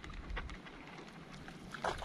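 Faint water lapping and dripping around a small boat, with a few soft ticks and a slightly louder short splashy sound near the end.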